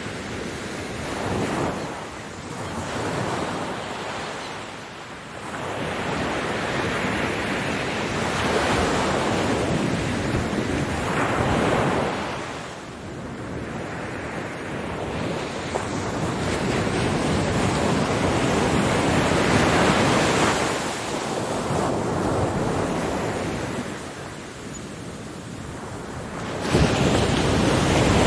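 Ocean waves breaking on a beach, the surf swelling and ebbing every few seconds. A sudden jump in loudness comes near the end.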